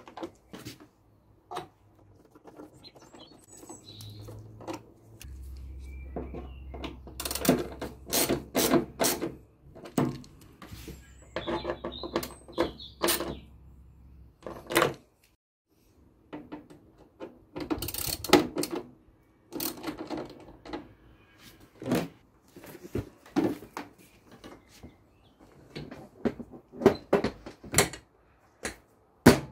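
Irregular clicks and knocks of a hand tool working the side fairing panel screws of a Yamaha TDM 850 motorcycle, in short clusters with pauses between. Near the end come sharper knocks as the seat is set back into place.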